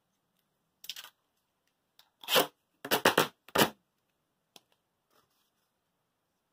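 A few short tearing, rasping noises from craft materials being handled: a faint one about a second in, then four louder ones in quick succession.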